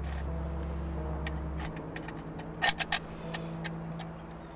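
Steel aperture plates on a homemade bell target being handled and swapped: scattered small metallic clicks, with three sharp clacks in quick succession a little past halfway, over a steady low drone.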